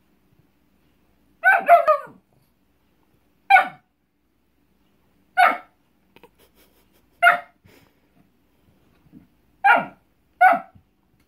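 A dog giving short, sharp barks about every two seconds, the first a quick double, at a cat hiding under a rug it is pawing at.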